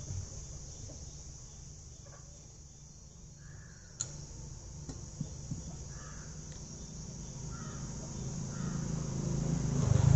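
Quiet outdoor background with a few faint, short bird calls and a single sharp click about four seconds in. A low rumble grows louder near the end.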